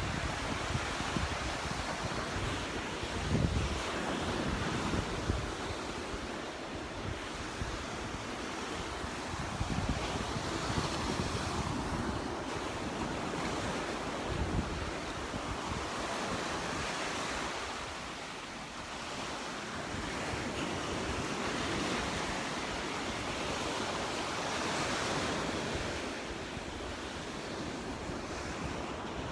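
Gulf of Mexico surf washing onto the beach, a steady rush that swells and eases, with wind buffeting the microphone in low gusts, the strongest about three and a half seconds in.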